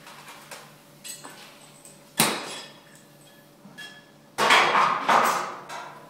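Metal clanking on steel: a sharp clang about two seconds in, then a loud run of several clangs with ringing about four and a half seconds in.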